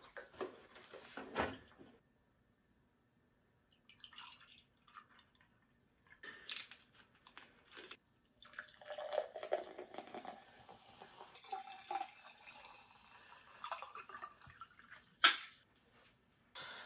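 Drinks being poured into glasses: milk from a plastic gallon jug, then sparkling water from a plastic bottle, with a few seconds of liquid running into a glass and the clunks of the containers being handled. A sharp knock near the end, the loudest sound, as something is set down on the table.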